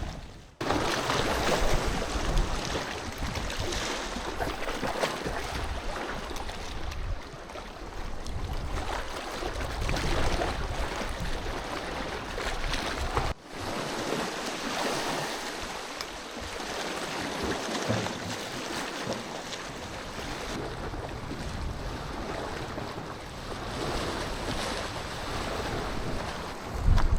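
Sea waves washing on the shore with wind gusting on the microphone, the sound breaking off briefly twice, once near the start and once about halfway.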